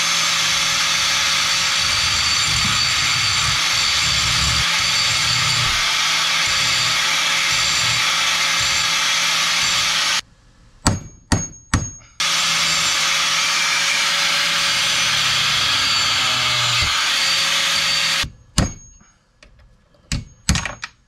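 Corded angle grinder cutting through the steel side plates and pins of a dirt bike chain, running steadily for about ten seconds, stopping briefly, then running again for about six more. Between the two cuts and near the end come a few sharp ringing metal taps, the last of them from a hammer knocking the cut link apart.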